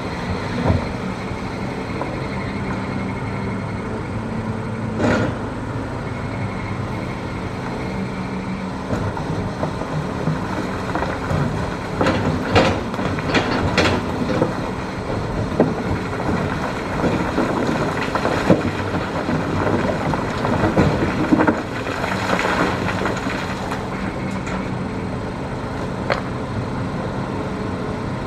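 Hitachi ZX210 excavator's diesel engine running steadily under load while the bucket digs hard rock, with scattered knocks and clatters of rock against steel, bunched at several points.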